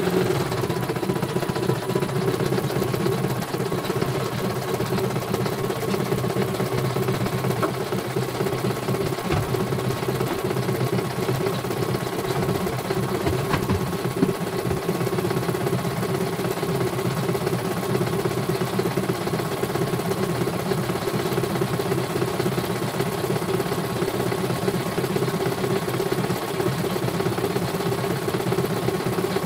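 CNY portable computerized embroidery machine running steadily, its needle stitching a design while the hoop carriage moves the material under it.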